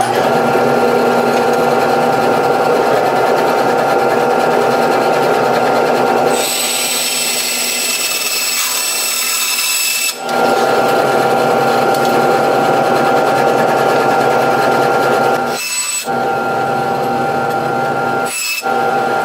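Power tool running and cutting through a pocket knife's handle scales, a steady motor hum under the grinding of the cut. For about four seconds midway the cut turns brighter and hissier, and near the end it eases off briefly two or three times.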